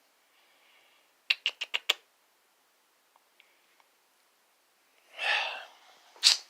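Pet birds at a cage: a quick run of about six short, sharp chirps or clicks a little over a second in, then a brief harsh, scratchy call about five seconds in.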